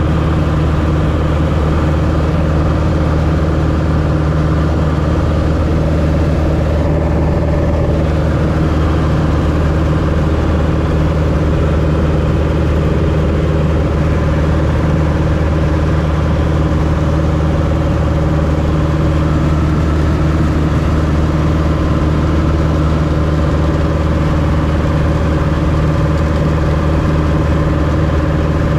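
Light airplane's engine and propeller droning steadily in cruise flight, heard from inside the cabin.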